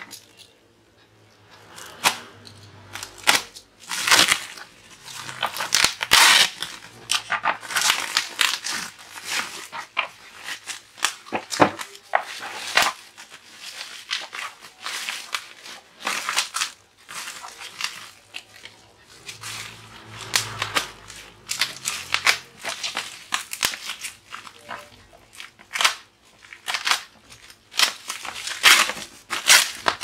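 Plastic wrapping and bubble wrap crinkling and being torn open by hand, in many irregular bursts.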